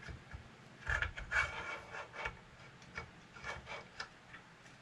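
Laser head of a Creality Falcon 2 engraver being handled onto its dovetail carrier mount: a series of light clicks, knocks and rubbing, busiest about a second in.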